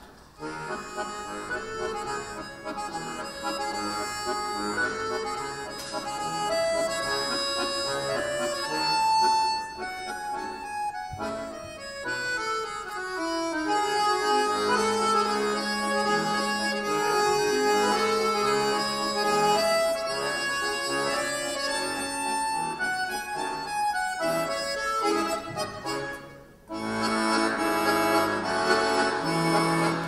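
Two button accordions playing a fast, dense duet passage. A falling run of notes comes about halfway through, and near the end the music breaks off briefly before both come back in loudly.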